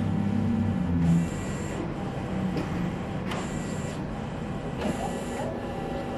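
HP DesignJet large-format printer working through copies of building plans. A steady low hum in the first second gives way to short, regularly repeating passes of the mechanism, about one every two seconds.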